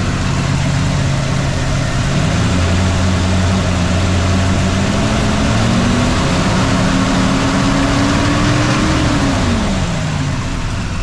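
Carbureted small-block Chevy 350 V8 in a 1969 Chevelle, freshly fitted with Vortec heads and a Comp Cams camshaft, running and being revved by hand at the carburetor. The revs climb slowly for several seconds, then drop back toward idle near the end.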